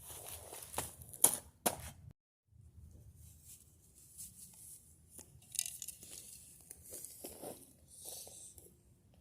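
Dry palm fronds crackling and tearing as they are cut. Three sharp cracks come in the first two seconds, and scattered rustling follows.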